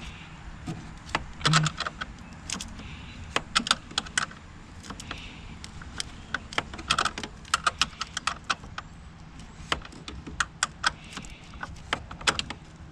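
Metal hand tool working a 10 mm bolt loose in a car's engine bay: irregular metallic clicks and clinks, often in quick clusters, as the wrench is turned and reset on the bolt.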